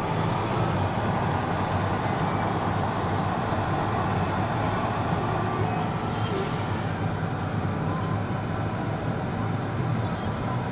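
Steady low hum of a car idling, heard from inside the cabin, with two brief scuffing noises, about half a second in and about six seconds in.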